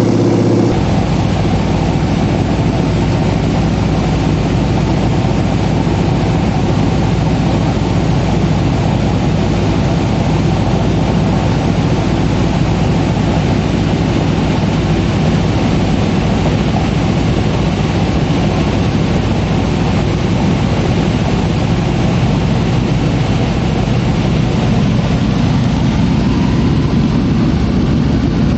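Small propeller plane's piston engine and propeller droning steadily in flight, heard from inside the passenger cabin.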